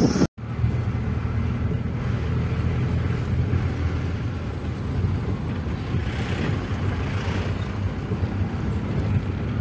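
Steady engine and road rumble of a car heard from inside its cabin as it drives along a mountain road. The sound drops out for an instant just after the start, and a brief rise in hiss comes about six seconds in.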